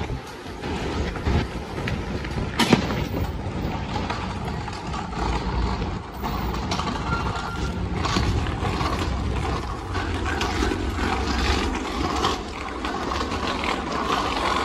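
Outdoor city ambience on an elevated footbridge: a steady low rumble, with one sharp click about three seconds in.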